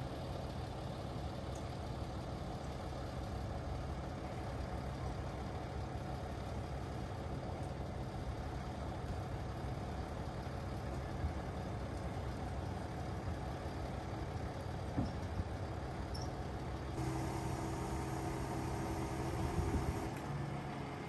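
Scania crane truck's diesel engine running steadily while it powers the Fassi knuckle-boom crane during a lift. About three-quarters of the way through it gets a little louder, with a higher tone added, for a few seconds, then settles back.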